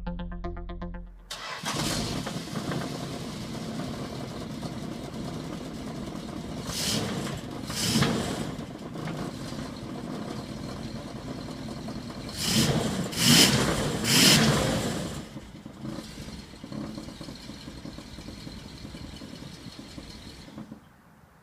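Chrysler 440 big-block V8 running through a dual 2.5-inch exhaust with mufflers and Magnaflow resonators, idling and blipped: two revs about seven and eight seconds in, then three quick revs in a row around the middle, before settling back to a lower idle.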